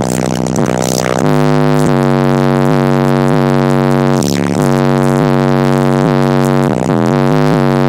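Hip-hop bass played loud through an MTX MXS-1204 12-inch subwoofer driven by a Sony Xplod XM-1902GX amplifier. A deep bass line comes in about a second in and holds long notes that step to new pitches, with quicker note changes near the end.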